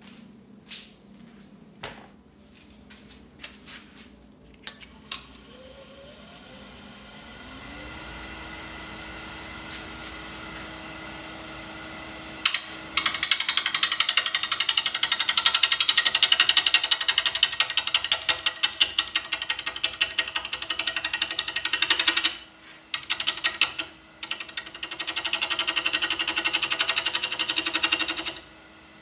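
A wood lathe motor spins up with a rising hum that settles to a steady pitch. Then a turning gouge starts cutting the spinning burl-and-epoxy blank with a loud, rapid rattling chatter, the tool striking the out-of-round blank on every turn. The cutting breaks off briefly twice and resumes.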